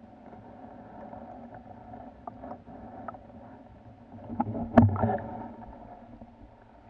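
Underwater sound heard through a submerged camera: a steady, muffled murmur of the water with a few light ticks. A little under five seconds in comes a cluster of knocks with one loud thump as the camera is moved and knocks against its housing or the stony bottom.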